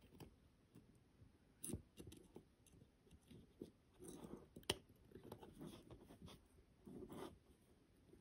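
Near silence with faint handling sounds: light rubbing and two small sharp clicks, about a second and a half in and near the middle, from fingertips and a fine steel tool working a loosened enamel dial off a pocket watch movement in a movement holder.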